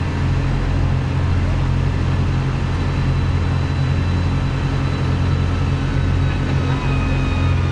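Pulling tractor's engine running flat out under heavy load as it drags the weight-transfer sled down the track, a steady low drone with a faint high whine over it.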